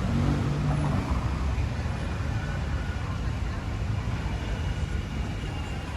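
City street ambience: a steady low rumble of traffic with faint voices in the background.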